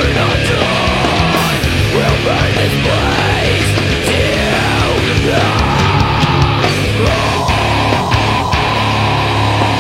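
Loud heavy metal music, with a steady low drone under notes that glide up and down in pitch.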